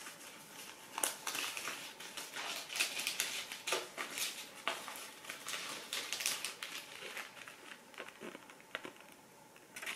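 Tissue paper rustling and crinkling as it is unfolded by hand, in irregular crackles that die down near the end.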